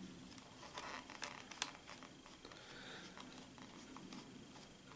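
Faint clicks and light scraping of a small screwdriver driving screws into a Tamiya 1:14 truck gearbox casing, with a few sharper ticks in the first two seconds.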